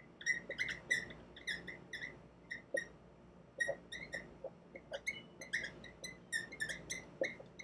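Dry-erase marker squeaking on a whiteboard while words are written: a quick, irregular series of short, high squeaks, one for each stroke.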